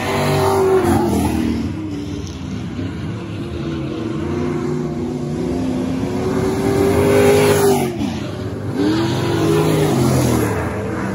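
A pack of dirt-track stock cars running at racing speed, their engine notes rising and falling as they go through the turns. One car passes close about eight seconds in, and its note drops sharply as it goes by.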